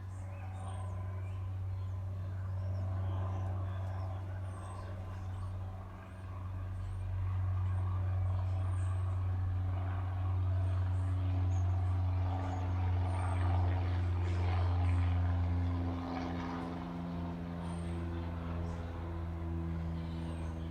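A motor vehicle's engine running with a steady low hum that grows louder towards the middle, its pitch shifting in the second half, while a short high chirp repeats about every four seconds.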